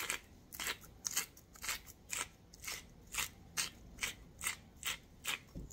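Salt grinder being twisted over a slow cooker, its mill crunching out salt in a steady series of short clicks, about two to three a second.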